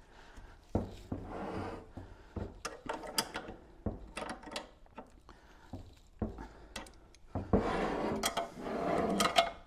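Knocks, clicks and scraping as an intake manifold with its fuel rail is handled and shifted about on a wooden workbench, with a longer stretch of rubbing and scraping near the end.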